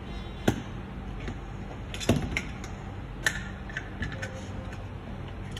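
Plastic clicks and taps of a new 9-volt battery being fitted into a Fluke 87V multimeter's battery compartment: a sharp click about half a second in, a cluster of clicks around two seconds, another just after three seconds, then lighter taps.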